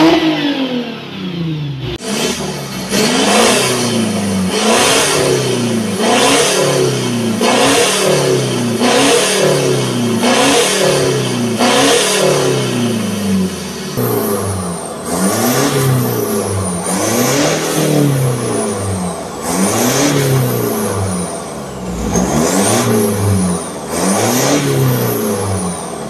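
Car engine revved over and over through a custom-built aftermarket exhaust: short throttle blips, the pitch rising and falling back about once every second and a half, with a brief pause now and then.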